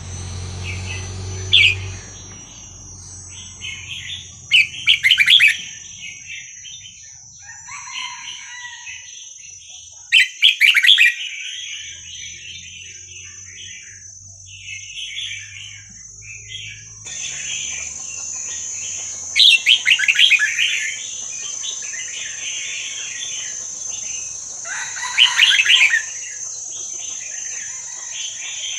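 Red-whiskered bulbul singing: runs of warbled, chattering phrases, broken by a few louder, sharper bursts of calls.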